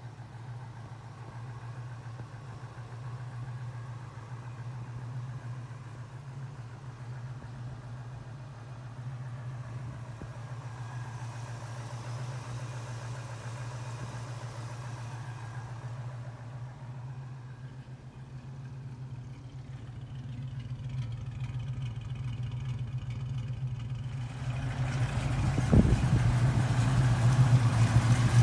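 A 1965 Chevrolet Chevelle Malibu SS's 327 V8, with tube headers and dual exhaust, running at a steady idle. Over the last few seconds it grows louder as the car drives up, with a single thump near the end.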